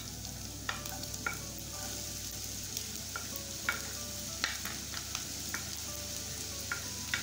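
Chopped onions sizzling in hot oil in a frying pan as they are added, with scattered light clicks and taps.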